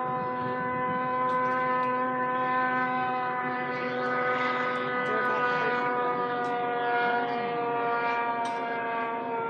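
Snowmobile engine held at high, steady revs as the sled skims across open water, a continuous droning whine that holds nearly the same pitch.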